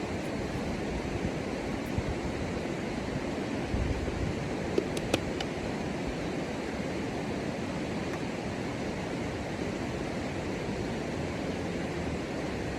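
Steady rushing outdoor noise with a few faint clicks a little before halfway.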